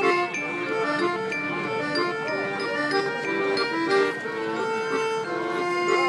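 An instrumental tune: held notes stepping from one to the next, a melody over a repeating lower line.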